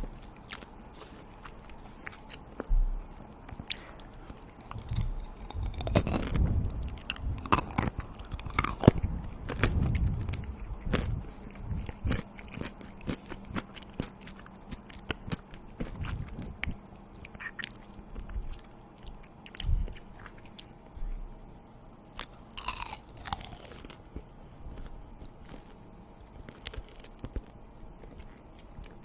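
A person eating close to the microphone: biting and chewing with crisp crunches, busiest and loudest between about 5 and 11 seconds in.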